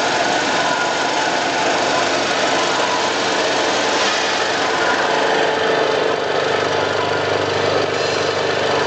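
Rotary vibrating screen sieve running while sifting powder: a loud, steady mechanical hum and shaking from its vibration motor and screen deck, with a deeper hum growing stronger about halfway through.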